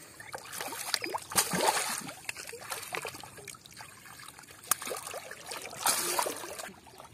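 Water trickling and splashing in irregular bursts, with the loudest splashes about a second and a half in and about six seconds in.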